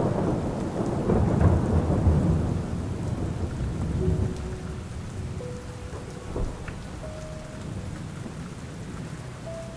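A thunderclap rumbling heavily over the first four seconds or so, then dying away into steady rainfall.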